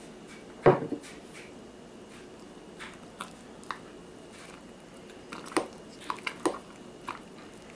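A metal spoon stirring flour and water into sourdough starter in a glass jar, clinking against the glass in about ten irregular knocks. The loudest knock comes just under a second in.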